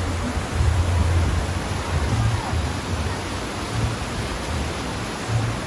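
Rushing white water of a water-park tubing river's rapids: a steady loud hiss with an uneven low rumble.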